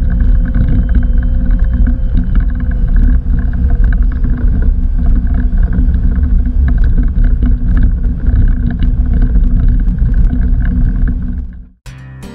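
Cabin noise in the cockpit of a Cessna Citation CJ4 on the ground: a loud steady rumble with an even whine from its two Williams FJ44 turbofan engines. Near the end it cuts off suddenly into strummed acoustic guitar music.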